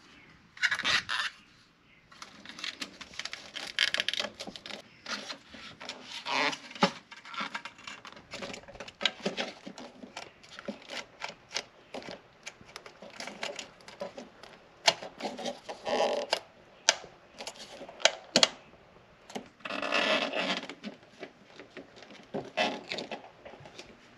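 Hands working on engine parts under a car's bonnet, handling the throttle body on the intake plenum: irregular clicks and knocks of plastic and metal parts with bouts of scraping and rubbing, a few louder handling noises now and then.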